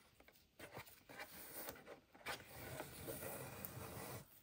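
A ribbon being untied and pulled off a cardboard cake box: faint, irregular rustling and sliding of ribbon over cardboard, with a few light scrapes.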